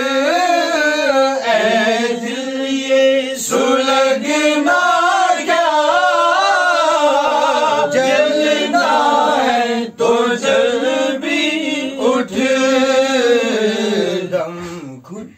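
A male voice singing a naat, Urdu devotional verse, without instruments, drawing out long, wavering, ornamented notes on a drawn-out vowel between lines of text. The singing dips briefly about ten seconds in.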